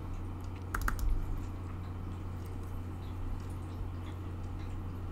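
A quick double click of a computer mouse button, opening a file, over a steady low hum; a few faint clicks follow.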